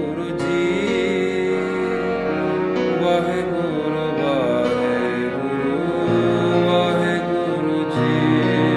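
Slow background music with a gliding melody over held notes; a deeper bass note comes in about six seconds in.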